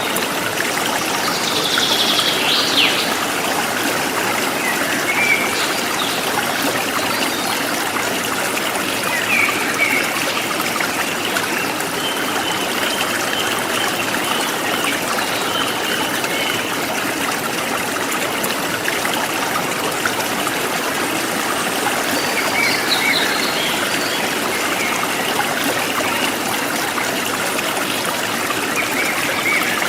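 Forest stream flowing steadily over rocks, with birds chirping now and then above it.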